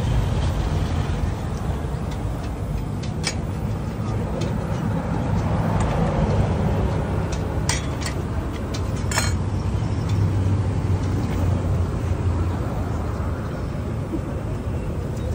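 A steady low rumble of background noise, with a few sharp metal clinks of a spatula and the small round hopper pans on the stove.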